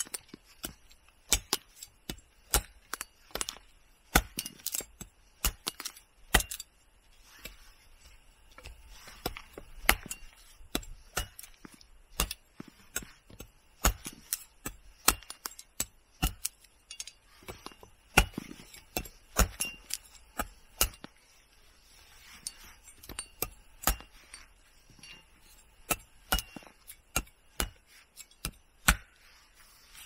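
A long knife chopping dry sticks into firewood: sharp, irregular chops of the blade into wood, about one or two a second, with a short pause about two-thirds of the way through.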